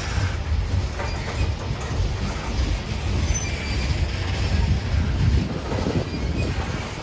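Freight train of CSX aluminum coal gondolas rolling past close by: a steady low rumble and rattle of steel wheels on the rails. Short, faint high wheel squeals and the odd knock come through it.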